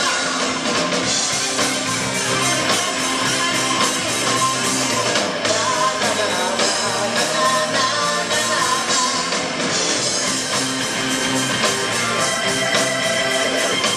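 Live rock music from a full band: electric guitars, keyboards and drums playing together steadily and loud.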